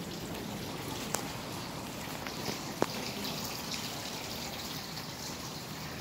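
Steady hissing background noise in a large indoor lobby, with two sharp clicks about a second and a half apart.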